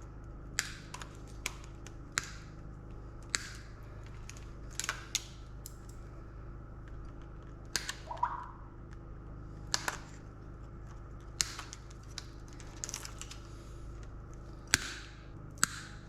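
Sharp, irregular clicks and snaps, about a dozen in all, from hand tools and metal parts being worked while an electrical control panel is dismantled for scrap. A steady low hum sits underneath.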